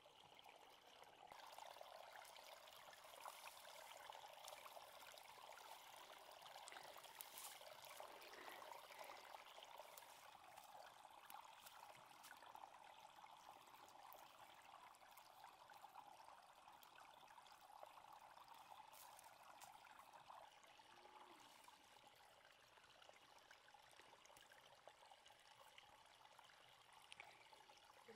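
Faint, steady running water, like a trickling stream or a flowing tap, with a few light clicks.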